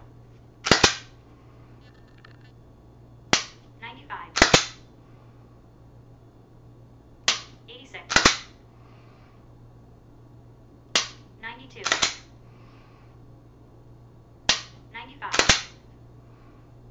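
Dry-fire practice with a handgun: a sharp trigger-break click roughly every three and a half to four seconds. Each click is followed about a second later by a louder double clack of the slide being racked back and forward to reset the trigger.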